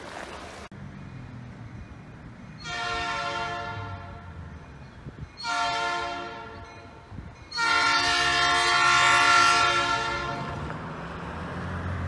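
Locomotive air horn sounding three blasts at steady pitch, a long one, a shorter one, then the longest and loudest, over a low rumble from the approaching train that grows near the end.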